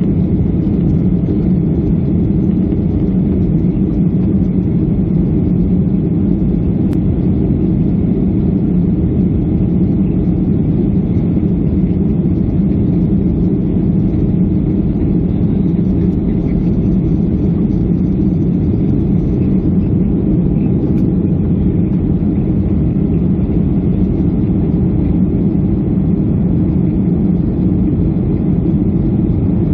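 Jet airliner cabin noise in flight: the engines and rushing air make a loud, steady low drone through the cabin.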